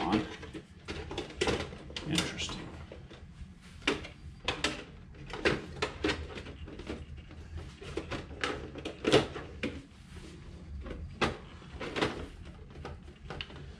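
Irregular clicks and knocks of hands handling the plastic cab and headache rack of an RC truck.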